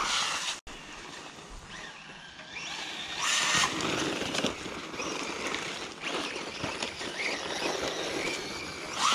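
Bezgar HM124 brushless RC truck running on a 3S LiPo across wet dirt, its motor whining as it speeds up and slows, with tyre and drivetrain noise. There is a louder rushing burst about three seconds in.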